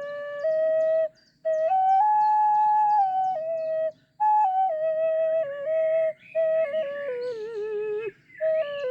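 Ocarina playing a slow melody in G-sharp minor pentatonic, tuned to 432 Hz: held, pure notes in short phrases with brief breaks between them, one phrase ending in a falling, wavering slide.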